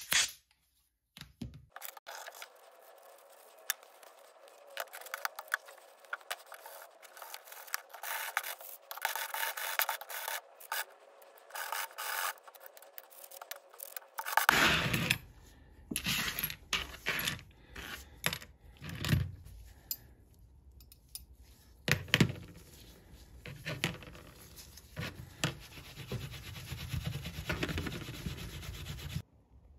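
Gloved hands rubbing and wiping degreased metal derailleur parts: an irregular scratchy scrubbing with many small clicks and scrapes. About halfway through it becomes fuller and heavier.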